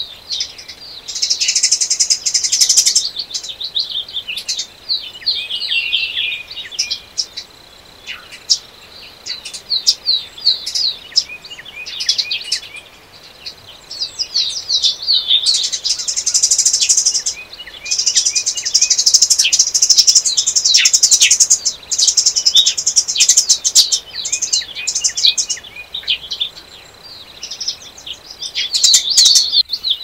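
Songbirds singing, with several overlapping: quick chirping phrases alongside long, fast, high-pitched trills that come and go every few seconds.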